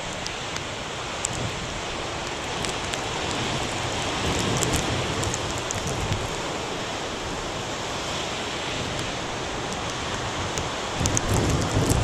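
Heavy storm surf breaking and washing over a rocky shoreline, a steady wash of noise, with wind on the microphone. The low rumble swells near the end.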